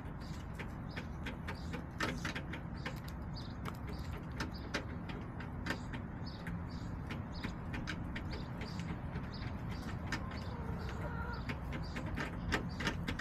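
Backyard hens pecking: irregular sharp taps, several a second, over a low steady rumble, with a soft hen call about ten seconds in.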